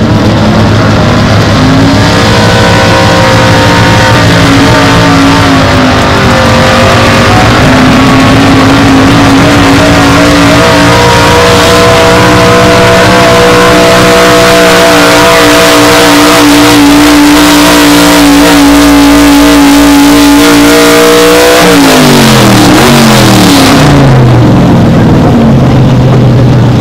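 Small-block V8 of an early-1970s Ford pickup at full throttle, dragging a weight-transfer pulling sled. The engine note climbs about two seconds in and holds high and loud through the pull. About 22 seconds in it falls away sharply as the driver lets off, then settles to a lower run.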